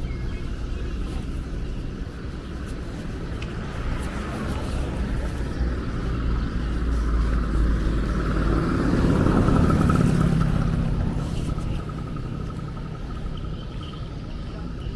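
Outdoor street ambience with a steady low rumble, and a vehicle driving past that grows louder to a peak about nine to ten seconds in, then fades away.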